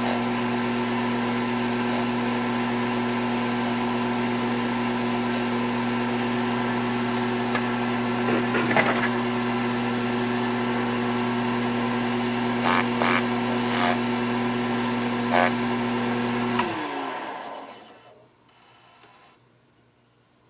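Wood lathe motor running at steady speed with an even hum, spinning a workpiece while its epoxy finish sets. A few brief scrapes come in the middle. About 17 seconds in, the lathe is switched off and winds down to quiet.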